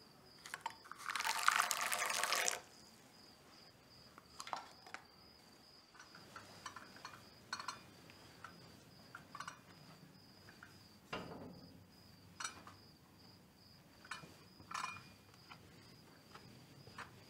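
Contents of a small jar being poured into a china teacup, a hissing pour lasting about a second and a half near the start. Then soft footsteps climbing a staircase, an irregular knock or thud about once a second, over a faint steady high-pitched tone.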